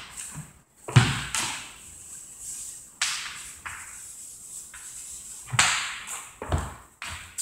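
Chalk writing on a blackboard: a few separate scratching strokes, each starting sharply and fading, some with a dull knock as the chalk meets the board.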